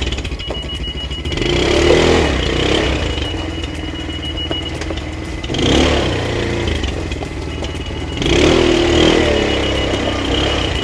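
ATV engine running, revving up three times, about a second and a half in, midway through and near the end.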